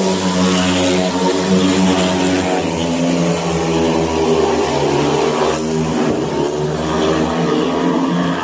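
Speedway motorcycles' 500 cc single-cylinder methanol engines running on the track, several bikes at once, their pitch wavering as the riders work the throttles.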